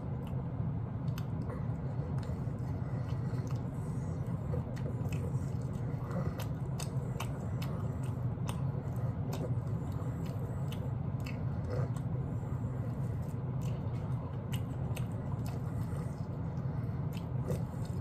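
Close-up mouth sounds of eating a barbecue rib: chewing, biting and lip smacks as many small scattered clicks, over a steady low background hum.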